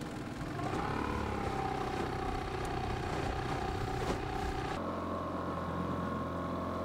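Mercury outboard motor running under way. It picks up speed about half a second in, then runs steadily. About five seconds in, the sound changes abruptly to a different steady engine hum.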